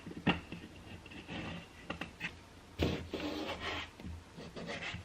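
Handling noise of an RV door window-and-shade frame being worked into the door opening: a sharp click near the start, a few light taps around two seconds in, and a longer scraping rub about three seconds in.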